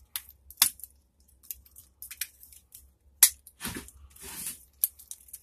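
Wire cutters snipping the wire leads of a lithium-ion battery pack: a few sharp clicks, with a longer scratchy rustle of the wires being handled and pulled between about three and a half and four and a half seconds in.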